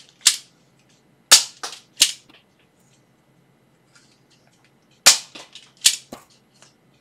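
Sharp plastic snaps and pops of a Nerf Elite 2.0 Slyshot single-shot dart blaster being primed and fired. One snap comes just at the start, then a quick group of three about a second in and another group of three about five seconds in.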